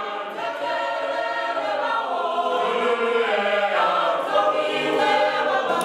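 School choir of boys and girls singing together without instruments, holding long, sustained notes.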